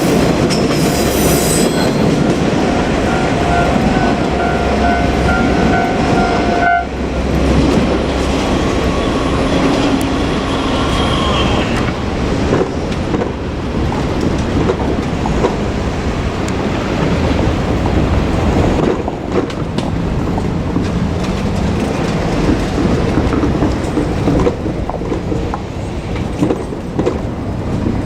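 A train running past close by at a level crossing, its wheels clattering over the rail joints. For the first several seconds a steady crossing warning tone sounds over it, cutting off abruptly about seven seconds in.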